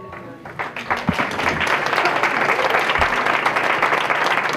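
Audience applauding: clapping starts about half a second in and quickly builds to steady, loud applause from a large crowd.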